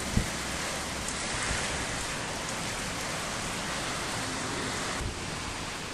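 Heavy storm rain falling steadily, heard as an even hiss, with a brief low thump just after the start.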